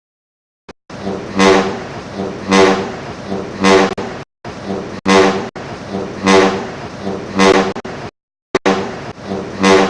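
Vehicle electric horn sounding in repeated blasts, about one a second.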